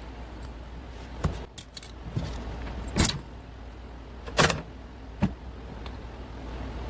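Metal engine parts and hand tools clinking and knocking as a motorcycle engine is taken apart: four separate sharp clinks over a steady low hum.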